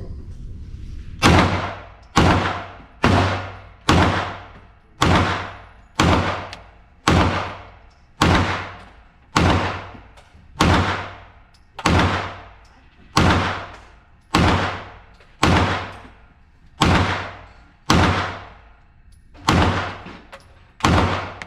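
Glock 45 Gen 5 9mm pistol firing a full magazine as steady single shots, about eighteen in all at roughly one a second, each crack trailing off quickly.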